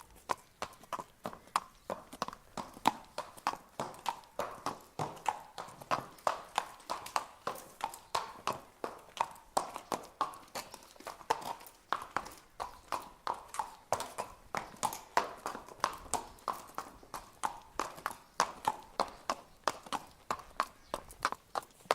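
Horse walking, its hooves striking the ground in a steady clip-clop of sharp knocks, about three a second.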